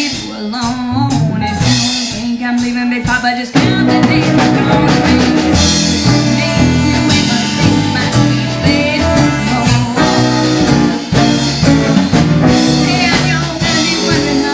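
A live western swing band playing with guitar and drum kit. The playing is sparser for the first few seconds, then the full band comes in louder about three and a half seconds in.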